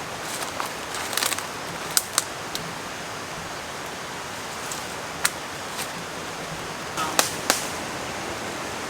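Steady rush of a nearby stream, broken by a handful of sharp clicks and knocks: two close together about two seconds in, one about five seconds in, and a pair about seven seconds in.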